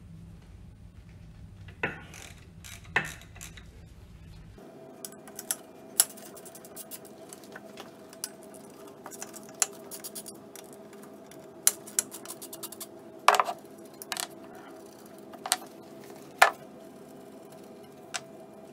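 Hand tools and small steel screws clinking and tapping as the screws of a pump's seal cover are loosened and removed: about a dozen irregular sharp metallic clicks.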